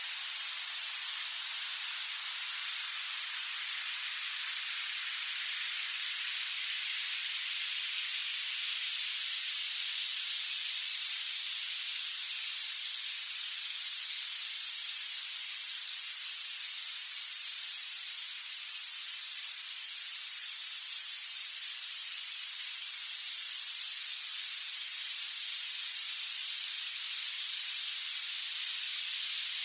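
Violet noise: a steady, even hiss weighted to the highest pitches, with no low end at all.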